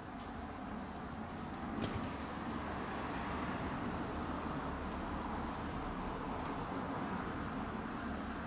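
Outdoor garden ambience: a steady background hiss with a thin, steady high tone, and a short cluster of sharp high clicks or chirps about a second and a half in.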